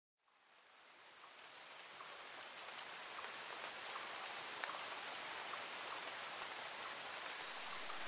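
A steady, high-pitched chorus of crickets trilling, fading in over the first couple of seconds. Three short, sharp high chirps stand out over it around the middle.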